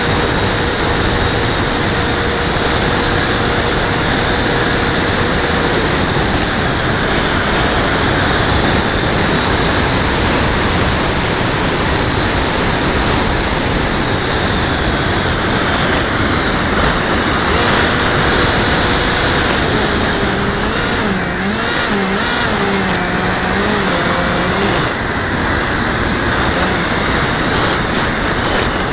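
A radio-controlled model airplane's motor heard from a camera mounted on the plane in flight: a steady rush of wind on the microphone with a high motor whine whose pitch wavers. About two-thirds of the way through, a lower tone wobbles up and down for a few seconds.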